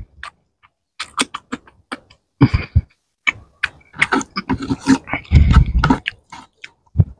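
A person chewing rice and fish close to the microphone, with wet lip-smacking and many sharp mouth clicks; the smacking comes thickest and loudest in the second half.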